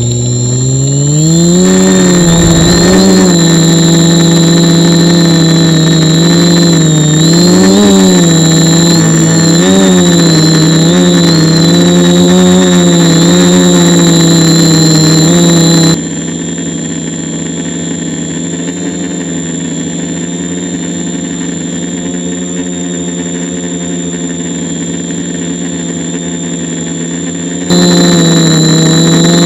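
Small quadcopter's electric motors and propellers spinning up for takeoff in a rising buzz, then a steady hum that wavers up and down in pitch as the throttle is worked in a hover, heard close up through the onboard camera's microphone. A thin high whine runs throughout. About halfway through, the sound turns quieter and duller for around twelve seconds.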